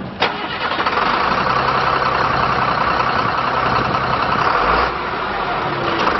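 Caterpillar 3116 inline-six turbo diesel running at idle, heard close at the open engine bay. A sharp click comes about a quarter second in, after which the engine sound gets louder and holds steady, with a brief dip near five seconds.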